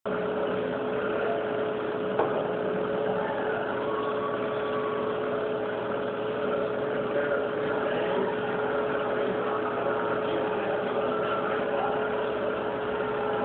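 Steady hum of a reef aquarium's pumps running, with water circulation noise and one constant humming note. A brief click about two seconds in.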